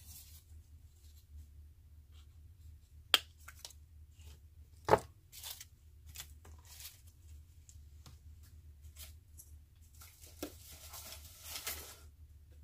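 Hand snips cutting through wire-cored artificial flower stems: two sharp snaps about three and five seconds in, among lighter clicks. Near the end comes a rustle of stiff plastic foliage being handled.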